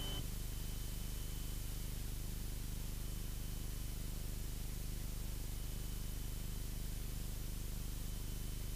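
Faint steady hiss over a low, even drone from a Cessna 172's engine and propeller in flight.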